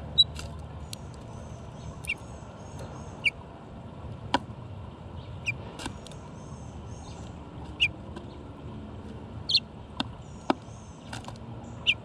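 Sharp clicks and taps of a bird pecking and cracking seed in a plastic window feeder, one every second or two. Short bird chips sound between them, with faint, repeated birdsong further off.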